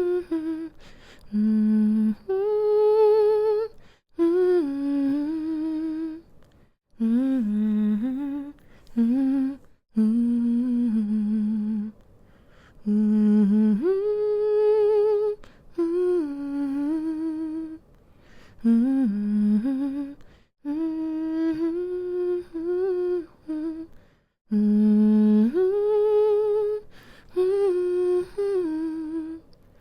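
A woman humming a slow, soothing lullaby-like tune in short phrases separated by brief pauses, her pitch stepping and gliding up and down.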